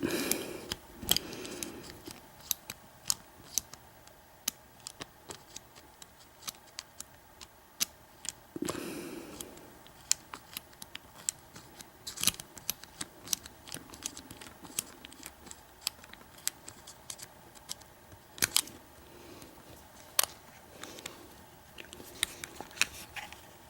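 Small metal clicks and light scraping from a lock pick working the pins of an American 5200-series padlock, held under heavy tension from a bottom-of-the-keyway tensioner. The clicks come irregularly, with a few louder ones.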